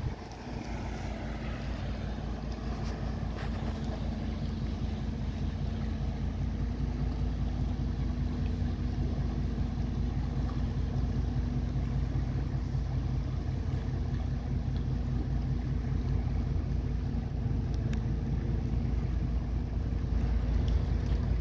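Steady low drone of a vessel's diesel engine, growing slowly louder, with wind rumbling on the microphone.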